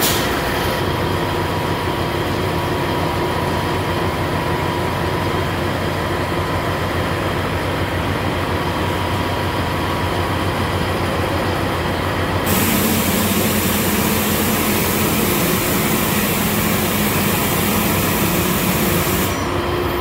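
Heavy engine-driven machinery running with a steady drone. A hiss and an added hum come in about twelve seconds in and drop out about a second before the end.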